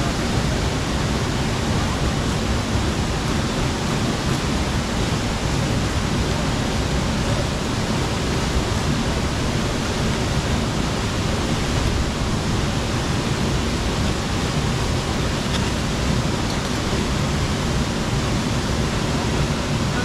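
Steady rush of a waterfall and the stream's running water.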